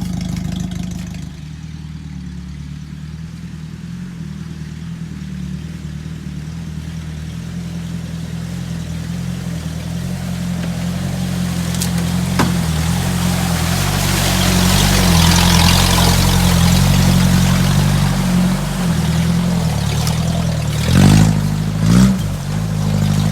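UAZ off-roader's engine running with its muffler removed as the truck drives along. A rushing noise from the wheels builds up midway, and near the end the engine revs in two sharp blips.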